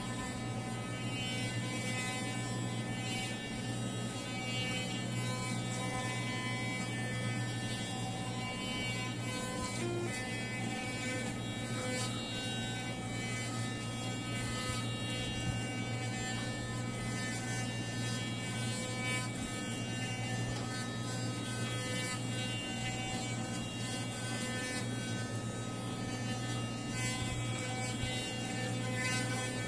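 Electric toothbrush running in the mouth during brushing, a steady buzz that holds an even pitch and level throughout.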